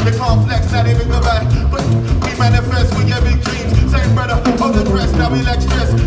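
Live band music from a tuba, saxophone and two drum kits: the tuba plays a pulsing bass line under a steady, dance-like drum groove, with a vocalist over it.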